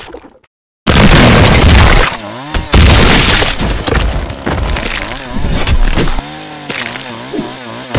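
Animated fight sound effects: a loud crash with breaking sounds about a second in, then a chainsaw engine revving up and down repeatedly, with a few sharp hits.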